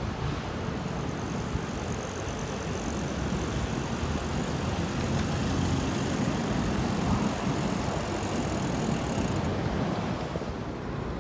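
Steady rush of wind and road noise on a phone microphone carried by a cyclist riding along a city street. The high hiss drops away near the end.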